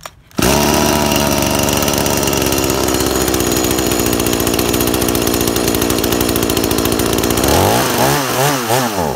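Two-stroke chainsaw engine (a 49.3 cc, 40 mm-bore Chinese GS5200N Klever motor on a Chinese carburettor) comes in loud and sudden just after the start and runs steadily. Near the end it is revved up and down several times. It is nearly warmed up and only now beginning to take throttle, though still not running right: the swapped carburettor makes it die when throttled until it is warm.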